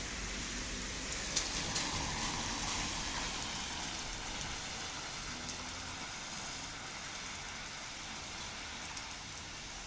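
Heavy rain falling as a steady hiss, with a few sharper drop impacts about a second and a half in.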